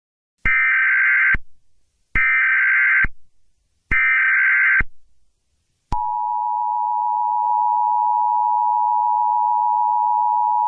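Emergency Alert System SAME header: three short bursts of data tones, about a second apart. From about six seconds in comes the steady two-tone EAS attention signal, which opens an emergency alert broadcast, here an Amber Alert.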